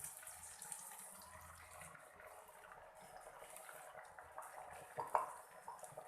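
Sauce liquid in a hot pan with vegetables, hissing faintly and fading over the first couple of seconds, then a few light knocks about five seconds in.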